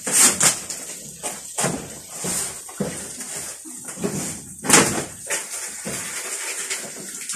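Irregular knocks and bangs, as of hard objects being handled and struck, over a steady background hiss. The loudest bangs come just after the start and again a little past the middle.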